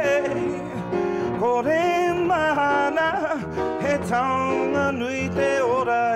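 A man singing a song over instrumental accompaniment.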